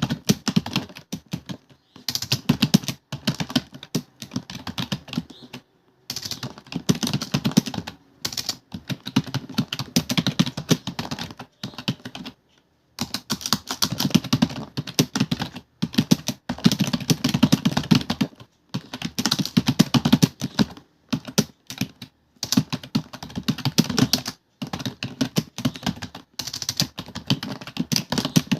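Fast continuous typing on a computer keyboard: rapid runs of key clicks broken by brief pauses of a fraction of a second.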